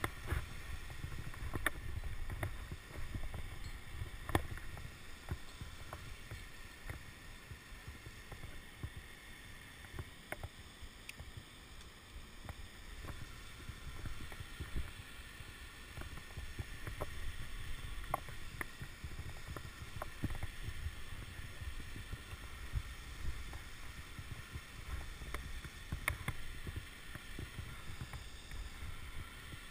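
Wind buffeting a head-mounted action camera's microphone in an uneven low rumble, with scattered sharp clicks and scrapes of hands, climbing shoes and gear against granite rock.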